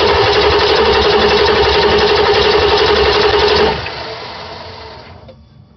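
Starter cranking a 7.3 Power Stroke V8 diesel for a compression test through a glow plug hole: a steady whine over an even pulse from the cylinders turning over, stopping about three and a half seconds in and fading away.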